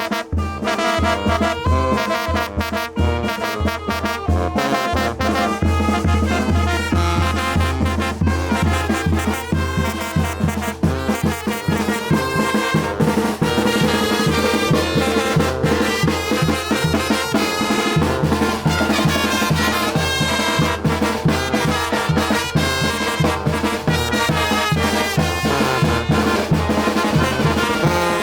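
Brass band playing a chilena: trumpets and trombones over a strong low bass line and a steady beat.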